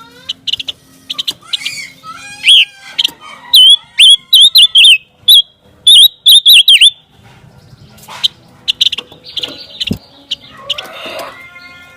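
Panca warna songbird singing: rapid runs of loud, sharp whistled chirps and trills, strongest in the first half, then sparser, quieter chirps.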